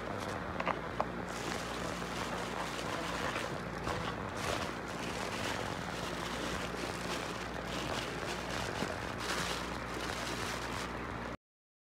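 Thin plastic takeout bags rustling and crinkling in irregular bursts as they are handled, over a steady low room hum. The sound cuts off abruptly near the end.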